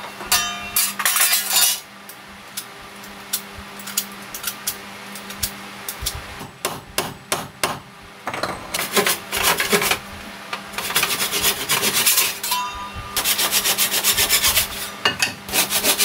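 Handsaw cutting protruding wooden plugs flush with the hull planking, in several bursts of quick back-and-forth strokes. A few separate light hammer knocks come in the quieter middle stretch.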